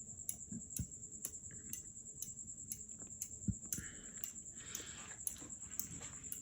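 52-inch close-mount ceiling fan running, with a faint, light tick about twice a second.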